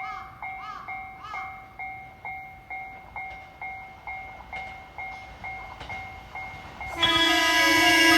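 Japanese level-crossing warning bell ringing steadily, about two strikes a second. About seven seconds in, an approaching JR West 223-series electric train sounds its horn, much louder and held.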